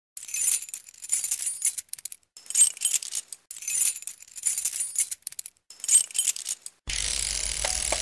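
Intro jingle of bright, glassy jingling shimmers, six in a row, each under a second long. Near seven seconds it gives way to a steady hiss with a low hum.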